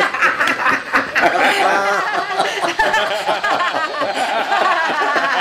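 Several people laughing hard together, overlapping snickers and chuckles in a continuous fit of laughter.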